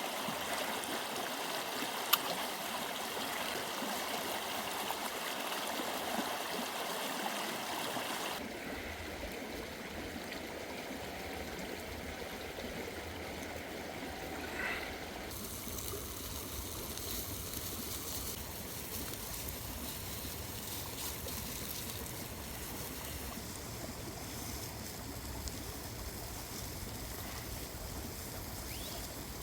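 Steady rush of running water with no words over it. The sound changes character abruptly twice, and there is one sharp click about two seconds in.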